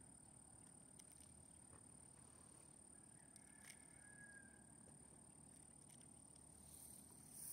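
Near silence: faint outdoor ambience by the water, with a faint short whistle about halfway through.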